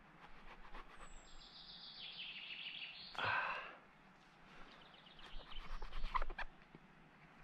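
A small bird singing a high trill through the first half, with a louder short sound about three seconds in. Later come crisp short cutting and tearing strokes, loudest about six seconds in, as a knife slices a bracket of chicken of the woods fungus off a tree trunk.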